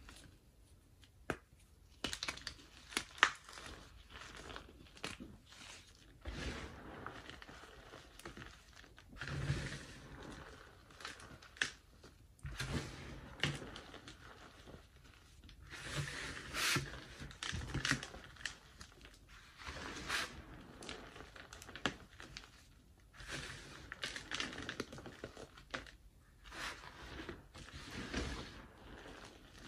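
Hands squeezing, crumbling and dropping loose powdered gym chalk: soft, irregular crunches and rustles of the powder, with a few sharp clicks.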